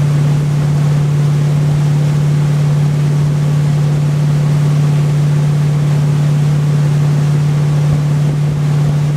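Tow boat's engine running steadily at pulling speed, a constant low drone, with the rush of the wake and spray over it.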